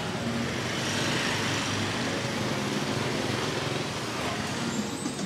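Motor scooters running past close by, with their small engines humming over a steady wash of street noise.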